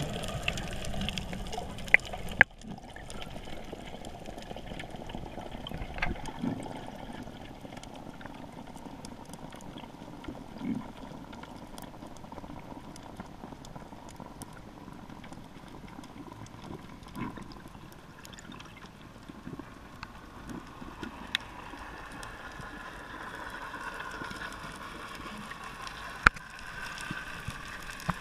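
Underwater ambience: a steady, muffled wash of water noise with a few scattered sharp clicks. The level drops suddenly about two and a half seconds in.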